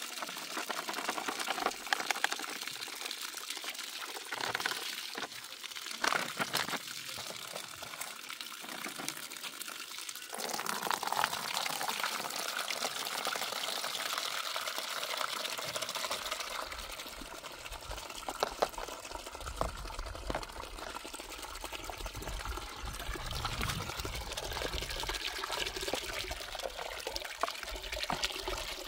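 Water running and splashing down a small gold sluice box over its green riffle mat as paydirt is rinsed out of the bag into it. A low rumble joins the water sound about halfway through.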